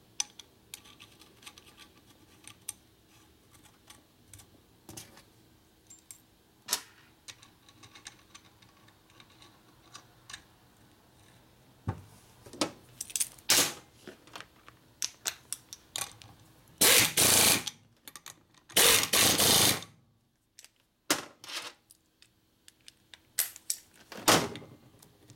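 Light clinks and taps of aluminium rocker-box parts and hand tools on a steel bench. Then two loud bursts of about a second each from a hose-fed air tool, with a shorter one near the end.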